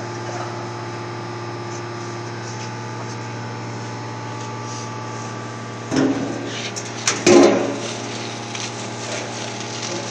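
Steady low machine hum, with crinkling plastic film and a few clanks as a film-covered deep-drawn sheet-metal part is handled and set down, first about six seconds in and louder about a second later.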